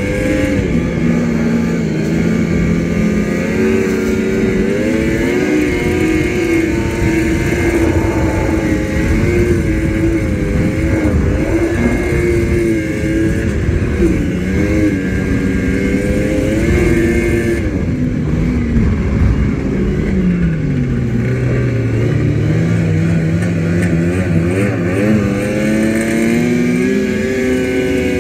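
Yamaha snowmobile engine running under way, its pitch wandering up and down with the throttle over a steady rushing noise. About two-thirds of the way through the engine note drops sharply as the throttle eases off, then climbs back up a few seconds later.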